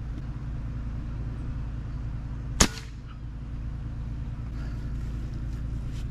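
A single shot from an AEA Challenger .357 bullpup PCP air rifle, firing unregulated, about two and a half seconds in: a sharp crack that dies away quickly. Under it runs a steady low hum.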